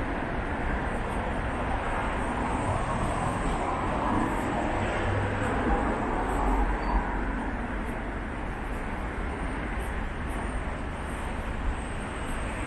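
City street traffic: a steady wash of passing cars and other vehicles, swelling louder around the middle as something passes close by.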